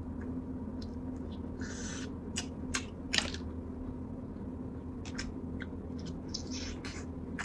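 Close-up eating and food-handling sounds: a few sharp clicks and crackles over a steady low hum, with two short hisses.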